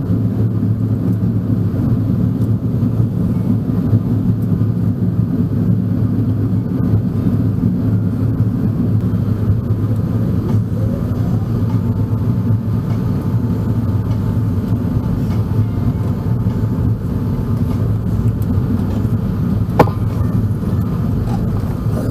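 Steady low rumble of cabin noise aboard an Airbus A380 with Rolls-Royce Trent 970 engines. A faint steady tone sounds through the middle, and there is one sharp click near the end.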